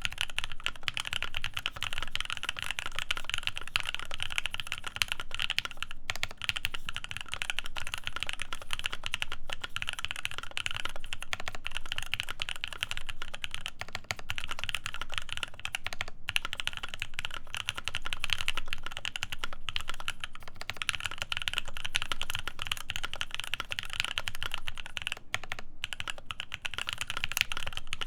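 Continuous fast typing on a Devastating TKL mechanical keyboard with lubed C3 Tangerine linear switches, an FR4 plate and PBT keycaps: dense, even keystrokes with only brief pauses.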